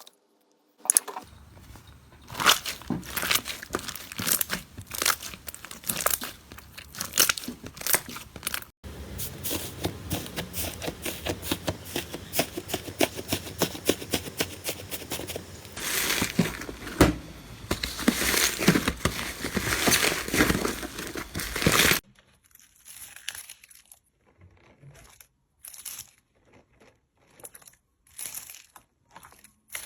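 Slime being squeezed and worked by hand, with dense crackling and popping. About 22 seconds in it cuts to sparser, quieter squishes and clicks.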